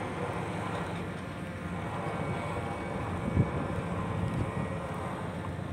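Steady low drone of a running diesel engine, with one brief thump about three and a half seconds in.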